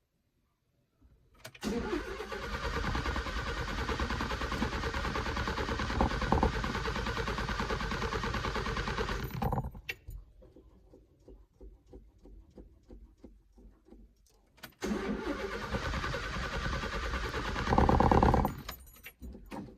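Fiat 147 starter cranking the engine in two long attempts, about eight seconds and then about four, with faint clicks in the pause between. The engine does not catch: a hard-to-start car on a weakening battery.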